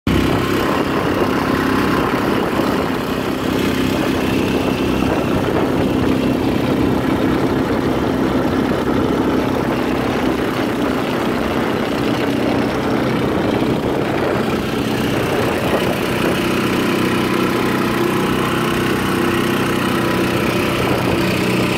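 Small boat's outboard motor running steadily while under way.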